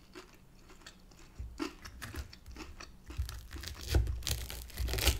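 Knife and fork cutting into a breaded chicken Kiev on a wooden board: crunching of the crumb coating and irregular knocks of the knife on the board. It starts quietly and grows louder and busier after about three seconds.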